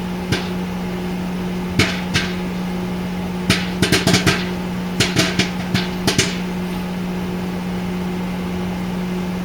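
Popcorn kernels popping inside a running over-the-range microwave oven: sharp, irregular pops over the oven's steady hum. The pops come in scattered clusters and stop about six seconds in, leaving only the hum, as the batch nears the end of popping.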